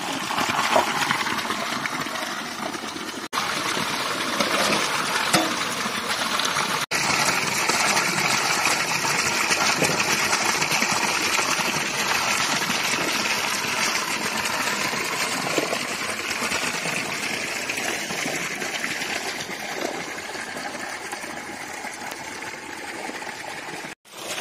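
Water running steadily along a stone channel, with splashing as vegetables are washed by hand in a pot of water.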